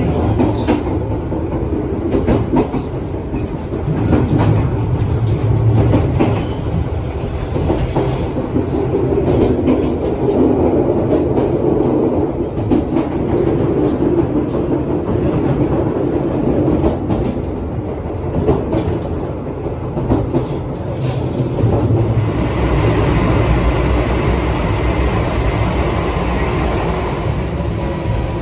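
Izukyu 2100 series resistance-controlled electric train running, heard from inside the car: a steady rumble with irregular clicks of the wheels over rail joints. About two-thirds of the way through, the sound turns hissier, with a faint steady tone.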